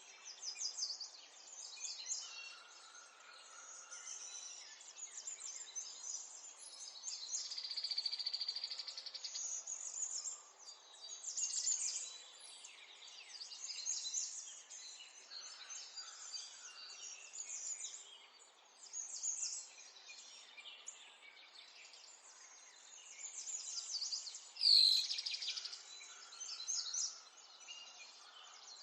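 Several songbirds singing and chirping together in a busy morning chorus of overlapping trills and short calls, with one louder, sharper call near the end.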